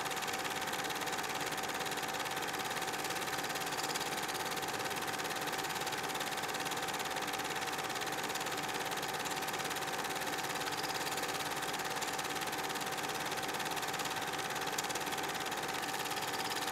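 A small motor running with a steady mechanical whirr and a constant hum tone, even and unchanging throughout.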